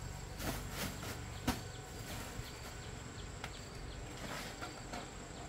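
Insects keep up a steady high-pitched drone, with soft rustling from a woven plastic sack as it is handled and set down, and one sharp knock about a second and a half in.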